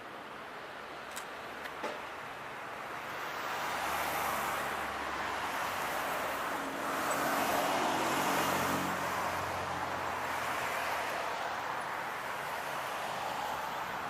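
A motor vehicle passing by: engine hum and road noise build over a few seconds, are loudest about midway, then ease off. A few faint clicks near the start.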